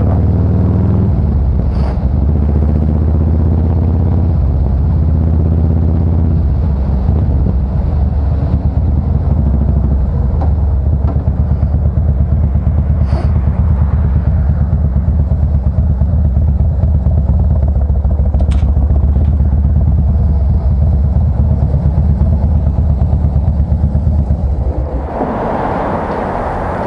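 Harley-Davidson Fat Boy Special's V-twin running through a SuperTrapp exhaust on the move. Engine speed changes in the first several seconds, then settles into a steady pulsing beat. Near the end the engine note falls away under a rushing noise.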